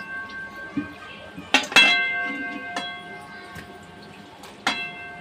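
Stainless-steel plate and metal kadhai clinking together four times while washed mutton is moved between them, two strikes in quick succession about a second and a half in and the last near the end. Each clink rings on for a second or more.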